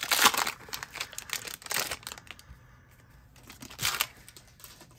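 Crinkly plastic wrapper of a Disney Lorcana trading-card booster pack being torn open. The loudest tearing crinkle comes at the very start, with further rustles about two seconds in and again near the end as the stack of cards is pulled out of the wrapper.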